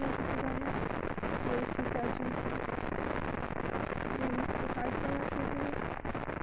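Steady background noise hiss with faint, indistinct distant voices.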